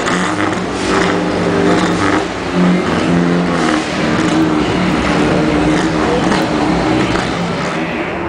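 Tuned Subaru Impreza's flat-four boxer engine revving loudly, its pitch holding briefly and then stepping up or down every second or so.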